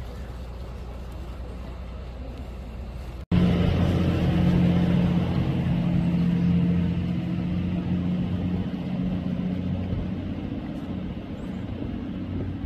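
A motor vehicle's engine running close by, a steady low hum that is loudest just after an abrupt cut about three seconds in and then fades gradually, as if the vehicle draws away.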